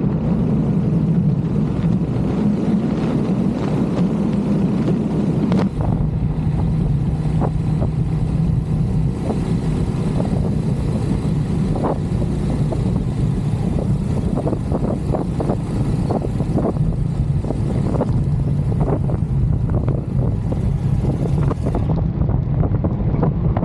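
Royal Enfield Hunter 350's single-cylinder engine running with its steady exhaust thump.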